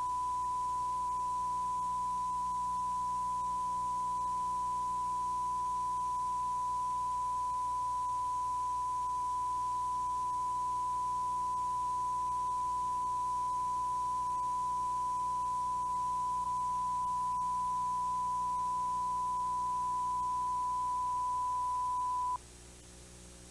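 Steady pure test tone, a quality-control reference signal on the tape's audio track, over a faint low hum. The tone cuts off suddenly near the end, leaving only the hum.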